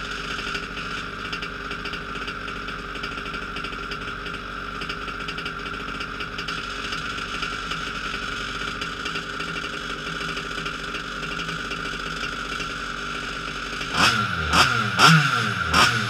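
Modified 29cc two-stroke petrol engine of a Losi 5ive-T RC truck idling steadily on its first run. About two seconds before the end it is revved in a quick series of throttle blips, roughly two a second, each rising and falling in pitch.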